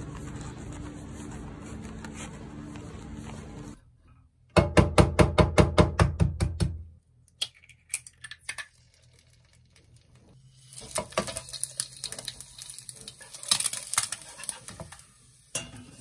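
Steady low outdoor ambience, then about two seconds of loud, fast, rhythmic tapping, then oil and an egg frying in a nonstick pan: a sizzling hiss with scattered crackles and pops.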